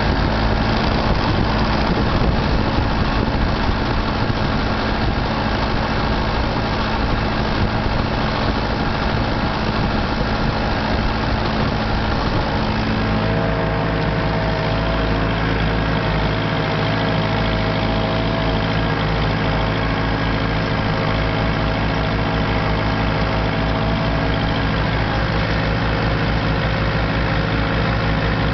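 Massey Ferguson 168 tractor's diesel engine running steadily under load while pulling a Massey Ferguson 39 cultivator, heard close up from the driver's seat. The engine note shifts about halfway through.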